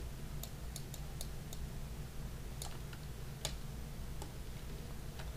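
Computer mouse and keyboard clicking: about ten sharp, irregularly spaced clicks, the loudest about three and a half seconds in, over a steady low hum.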